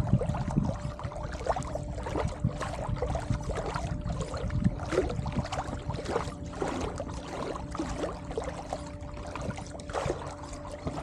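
Water splashing and lapping against a kayak's hull in many small irregular strokes, over a steady faint hum.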